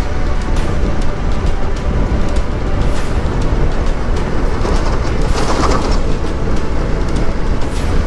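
Hero Xpulse 200 motorcycle's single-cylinder engine running at road speed with wind and road noise, riding close alongside a heavy truck. A brief louder rush of noise comes about five and a half seconds in.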